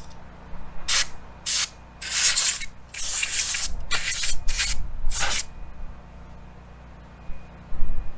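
A series of short hissing sprays from an aerosol can, about seven bursts of differing length, as electronic cleaner is sprayed into a small-engine generator's carburetor to clean the jet seat.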